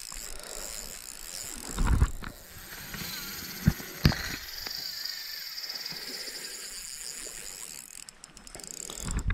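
Spinning fishing reel clicking and ratcheting while a hooked fish is played, with sharp knocks about two, three and a half and four seconds in.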